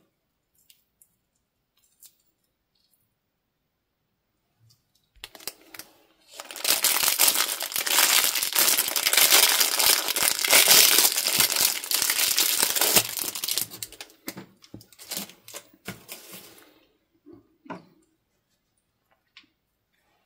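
Clear plastic wrapper crinkling and tearing as it is pulled off a tomato-shaped squishy toy. It starts about five seconds in, is loudest in the middle, and thins to a few scattered crackles before stopping near the end.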